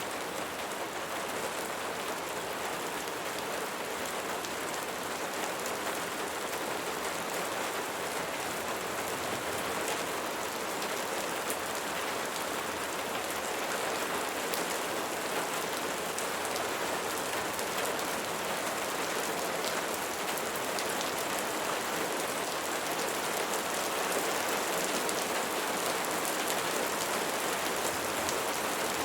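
Steady rain falling and pattering on surfaces, a dense even hiss with many small drop ticks.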